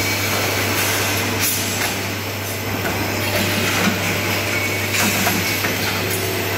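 Steady industrial machinery noise: a constant low hum under a rushing hiss, with a few light knocks.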